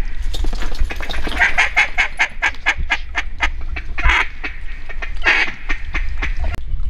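Duck quacking: a fast, even run of a dozen or more short quacks, then two longer, drawn-out quacks in the second half.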